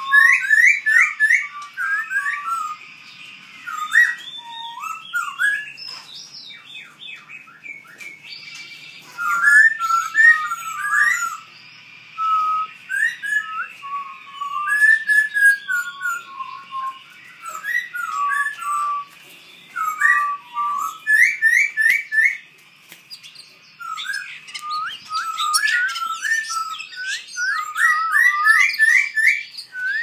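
Caged songbirds singing: loud, varied whistled phrases of quick rising and falling notes, with fainter high chirps from other birds over them and a few brief pauses.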